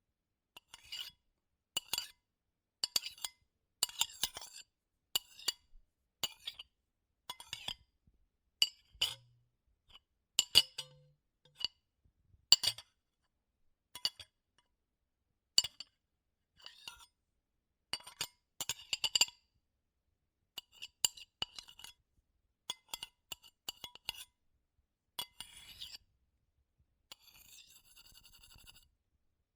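Metal spoon scraping and clinking on a ceramic plate in short, high-pitched strokes about once a second, like a spoon working food off a plate. Near the end a longer, steady scrape lasts about two seconds.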